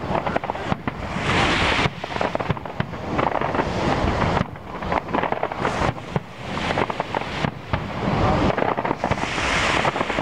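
Professional aerial fireworks shells bursting, many sharp bangs in quick succession, several a second, with crackling in between.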